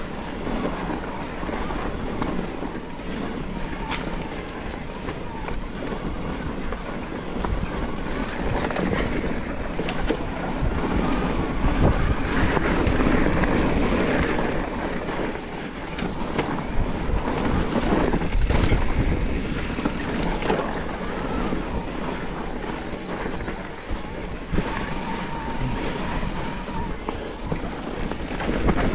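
Yamaha Moro 07 electric mountain bike rolling fast down dirt singletrack: steady tyre noise on the trail with scattered knocks and rattles from the bike over roots and bumps, loudest in the middle stretch.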